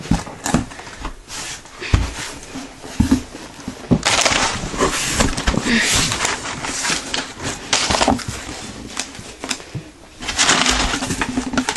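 Packing paper and cardboard being handled in an opened shipping box: a few knocks and rustles, then stretches of loud paper crinkling, about four seconds in and again near the end.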